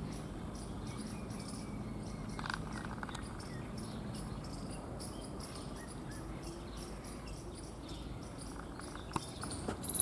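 Insects chirping in short, high-pitched pulses repeated several times a second, over a low steady outdoor hum, with a few faint clicks near the end.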